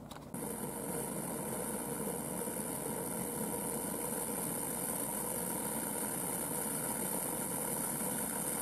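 Cook's Essentials 2-quart electric pressure cooker giving a steady hiss at its lid valve while it comes up to pressure. The hiss starts abruptly just after the opening and holds level.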